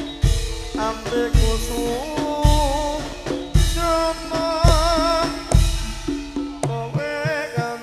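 Live Javanese tayub dance music: heavy drum beats land about once a second under a wavering melody line.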